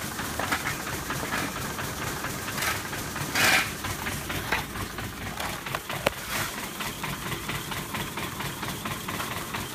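Processing machinery running steadily, a continuous mechanical rumble with a rapid rattle. A short loud hiss comes about three and a half seconds in, and a sharp click comes a little after six seconds.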